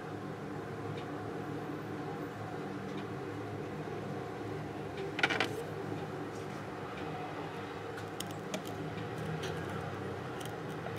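Small metallic clicks and taps of a hand setting tool against a gold ring set with small diamonds, over a steady low hum. The sharpest click comes about five seconds in, with a few lighter ticks near the end.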